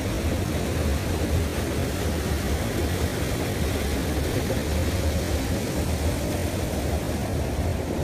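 Steady roar of a small waterfall and its fast, churning stream, swollen with rainwater, with a heavy low rumble and no change in level.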